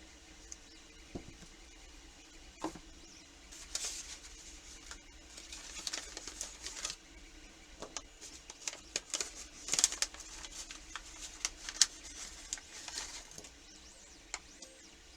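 Hands handling small objects at close range: irregular clicks, taps and rustles that grow busier through the middle, with the sharpest clicks about ten and twelve seconds in.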